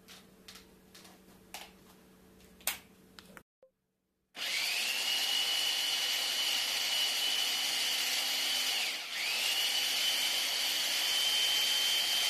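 Electric hand blender with a chopper-bowl attachment starting up about four seconds in, its motor whine rising as it spins up, then running steadily as it purées partly thawed frozen strawberry concentrate with orange juice; about halfway through it slows briefly and spins back up. Before it starts there are a few light clicks and knocks.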